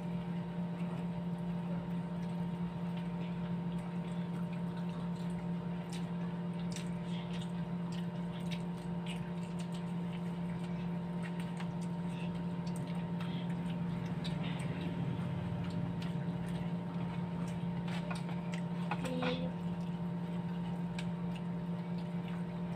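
Chewing and the small clicks and taps of food and utensils being handled at a meal, over a steady electrical hum with several fixed tones that is the loudest sound throughout.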